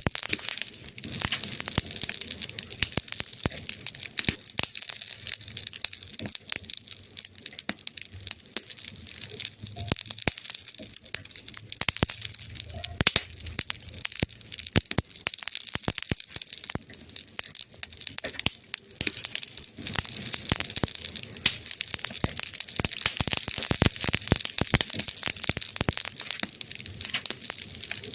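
Campfire burning: wood crackling and popping in dense, irregular snaps over a steady hiss.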